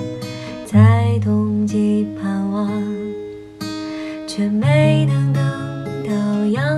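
A woman singing a Mandarin folk ballad while strumming an acoustic guitar.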